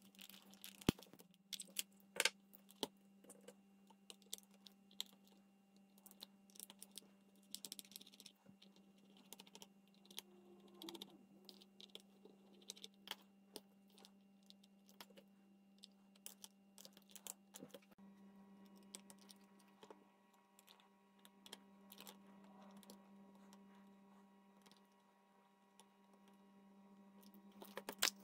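Scattered small clicks and taps of a plastic Walkman cassette-player casing and a small screwdriver being handled as the unit is unscrewed and taken apart, with a louder cluster of clicks near the end. A faint steady low hum runs underneath.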